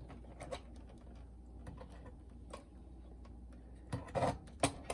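Small clicks and taps of hands handling the plastic parts and wiring inside a cassette boombox during disassembly, with a louder cluster of clatter about four seconds in.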